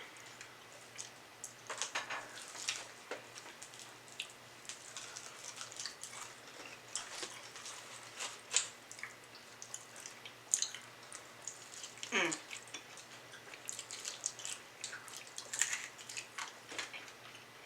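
Close-miked eating: crunching and smacking on fried chicken wings, a run of scattered crisp clicks and crackles. One short sound slides down in pitch about twelve seconds in.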